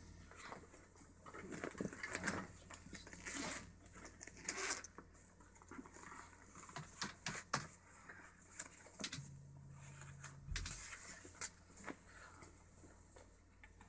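Faint scattered small clicks and rustles of handling in a quiet room, with a short low hum about nine seconds in that ends in a soft thump.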